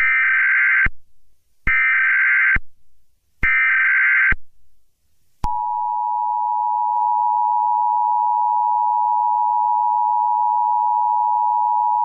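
Emergency Alert System SAME header: three short bursts of screechy digital data tones, each just under a second long. They are followed, about five and a half seconds in, by the two-tone EAS attention signal (853 and 960 Hz), which holds steady and unbroken.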